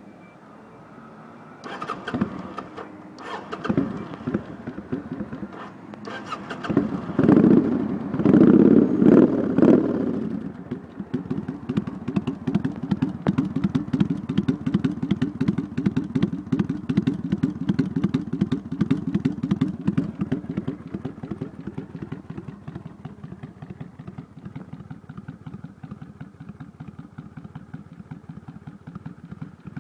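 Kawasaki Vulcan 800 V-twin motorcycle engine starting about two seconds in, revved a few times through its exhaust, then settling to a steady, lumpy idle that slowly eases down.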